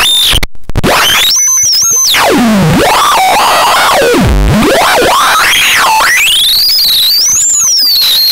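Catastrophone 3 electronic noise synthesizer sounding a loud tone that sweeps up and down in pitch over a harsh, noisy texture. It stutters and cuts out briefly near the start.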